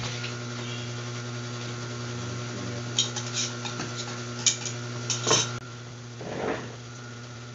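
The industrial sewing machine's motor hums steadily while the needle is stopped, and several sharp scissor snips cut the thread and binding about three to five and a half seconds in. A short rustle of vinyl being shifted follows.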